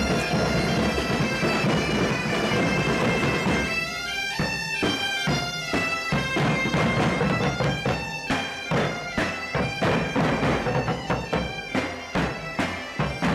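A band of Portuguese bagpipes (gaitas de foles) playing a tune over their steady drone, with bass drums and snare drums beating a march. From about four seconds in the drum strokes stand out more, in an even beat under the pipes.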